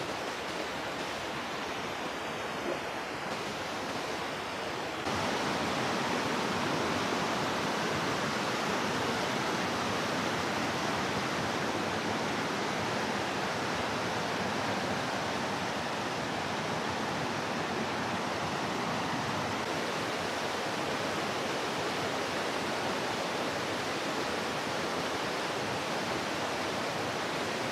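Steady rushing water, a dense even roar that jumps abruptly louder about five seconds in and then holds steady.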